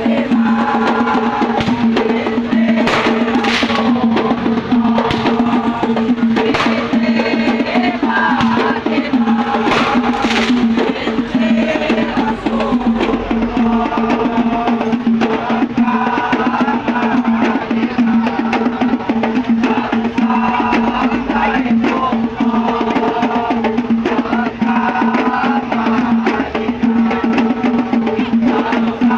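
Lively music driven by fast, dense percussion with wood-block-like strokes and drums, over a steady droning tone, with a short repeated melody above it.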